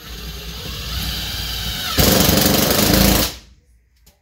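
Cordless drill driving a galvanized cement board screw through Wonderboard cement board into the plywood subfloor. The drill runs for about two seconds, turns much louder for about a second, then stops suddenly.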